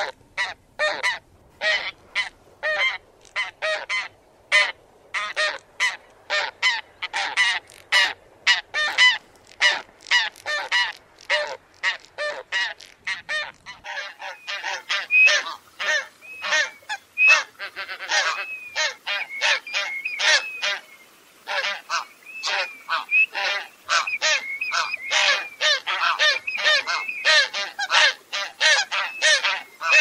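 Tundra bean goose (Anser serrirostris) honking in a rapid series of short calls, about two or three a second. From about halfway, calls overlap as several geese call at once.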